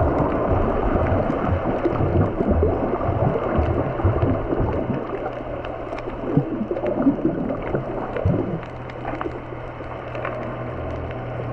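Water sloshing and gurgling around a camera at or just under the sea surface, muffled, with scattered faint clicks. A steady low hum sets in about five seconds in.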